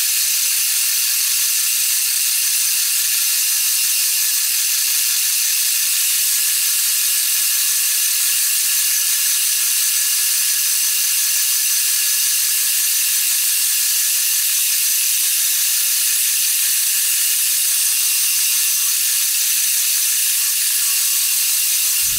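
FYD-32 milling machine with its cutter taking a steady cut in a C45 steel bar: an even, high hissing cutting noise with faint thin whining tones, unchanging throughout.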